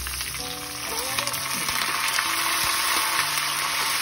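Small onions and dried red chillies sizzling hard in hot oil in a small pan, stirred with a steel spoon. The sizzle grows louder about a second in. This is the tempering being fried to pour over a curry.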